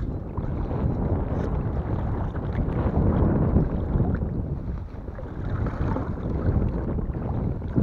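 Shallow water sloshing and churning as a long-handled sieve scoop is pushed into the bottom and worked about to dig out a target, with wind noise on the microphone.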